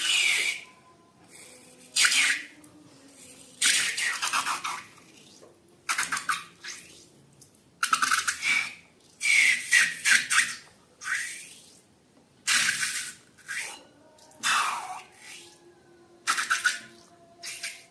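Slime being squeezed and stirred by hand: a series of short squelching bursts about a second apart, some with a brief high squeak.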